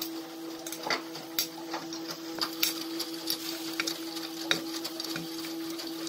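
Indesit IWUC 40851 front-loading washing machine tumbling a wet load during its wash: the drum motor's steady whine with irregular knocks and slaps as the laundry falls inside the turning drum.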